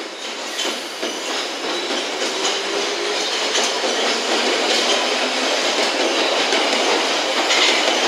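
London Underground Piccadilly line tube train (1973 Stock) moving along the platform, its wheels clacking over the rails, growing steadily louder.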